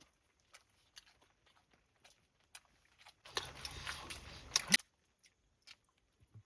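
Crunchy chewing of freshly made spring rolls close to the microphone: faint scattered crunches, then a louder crackling burst of about a second and a half near the middle.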